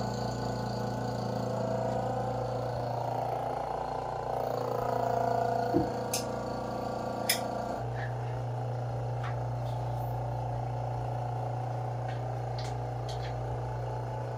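Steady mechanical hum of the pump driving the suction-cup seam setters on a quartz countertop seam, its tone shifting slightly about eight seconds in, with a couple of sharp clicks from the work around six and seven seconds in.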